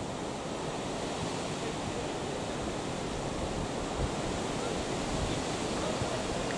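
Wind blowing across the microphone: a steady rushing noise with uneven low rumbling gusts.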